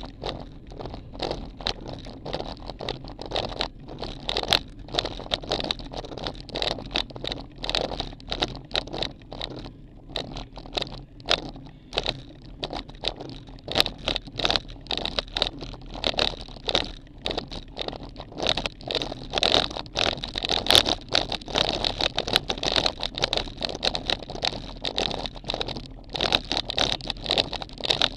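Road-bike riding noise picked up by a camera mounted beside the wheel: tyre running on asphalt with a constant irregular crackle and rattle, a little louder from about the middle on.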